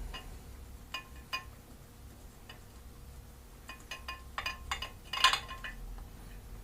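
Scattered metallic clinks and taps of a spark plug socket and hand tools working on a motorcycle spark plug, a few single clicks first, then a quicker run of clinks with one louder clatter about five seconds in.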